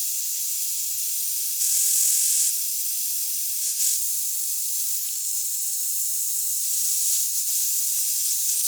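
Handheld hairdryer blowing, a steady high-pitched airy hiss that swells briefly about two seconds in.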